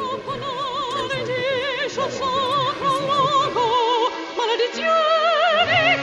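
Operatic singing with a wide, regular vibrato on long held notes, as a music cue.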